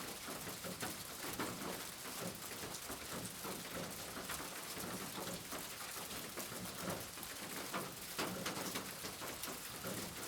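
Steady rain falling, an even hiss with many separate drop impacts in it.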